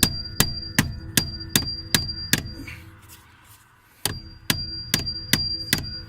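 Hammer blows on metal, about two and a half a second, each with a high metallic ring: seven strikes, a pause of nearly two seconds, then five more. The hammering works at a stubborn, partly drilled-out security bolt that holds a 2014 Subaru Impreza's ignition switch.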